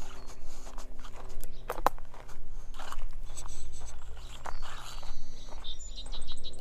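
Footsteps on a dry dirt trail strewn with twigs and leaf litter, at an uneven pace. Small birds chirp a few times in the background around the middle and near the end.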